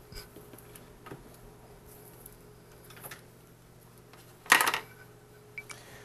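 Small hard parts clattering as they are handled on a workbench: a few faint ticks, then a brief, louder clatter about four and a half seconds in.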